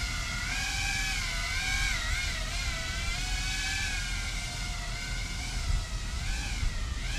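FPV quadcopter drone flying, its motors and propellers whining with a pitch that keeps rising and falling as the throttle changes.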